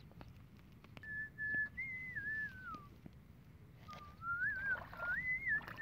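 A person whistling a wandering tune in two phrases of about two seconds each, with a short pause between them.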